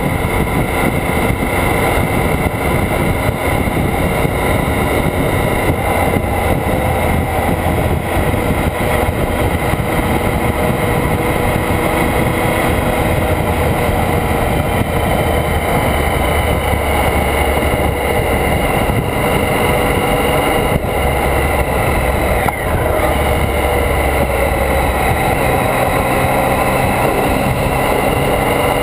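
Motorcycle engine running steadily at road speed, heard close from a camera mounted on the bike, with wind and road noise rushing over the microphone. About three quarters of the way through the engine note dips briefly, then carries on.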